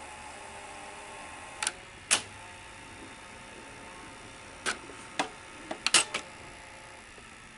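Sony SL-100 Betamax deck's tape transport running with a faint steady hum, broken by sharp mechanical clicks: two about two seconds in, then a quick cluster of four or five near the end, as its front controls are pressed and the mechanism changes mode while picture search is tried.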